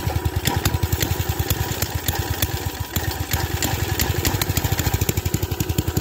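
Minibike's small air-cooled engine idling steadily, with an even, rapid string of firing pulses.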